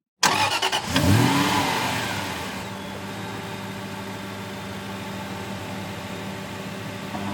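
Aston Martin sports car engine starting: a brief crank, then it catches with a rev that rises and falls back within about a second, and settles into a steady idle.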